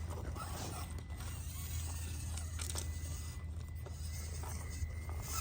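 Traxxas TRX-4M RC rock crawler's small electric motor and gears whining as it creeps over rock, with scattered light clicks of tyres and chassis on the stone.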